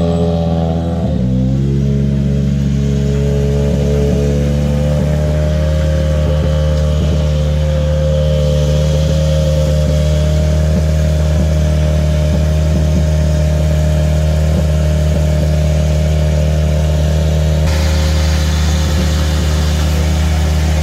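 A WRC Rally1 car's engine idling steadily after a brief waver in engine speed at the start. A hiss joins near the end.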